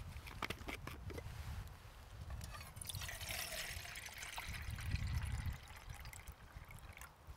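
Water poured from a plastic bottle into a metal camp mug, a steady splashing trickle for about three seconds in the middle. It follows a few light clicks near the start as the bottle is handled.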